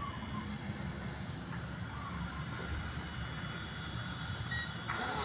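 Wind rumbling and buffeting on the microphone, with a steady high hiss over it.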